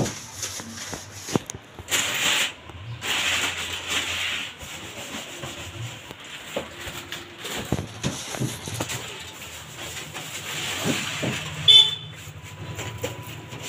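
Broom brushing and scraping across the top of a wardrobe in hissy sweeps, with scattered knocks as things are shifted. A short, sharp high squeak near the end.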